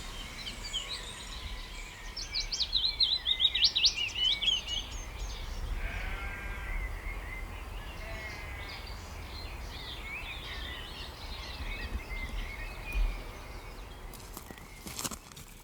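Several small birds singing and calling together, with one loud rapid run of notes about two to five seconds in, over a low wind rumble. A lamb or sheep bleats about six seconds in, and there are a few crackling rustles near the end.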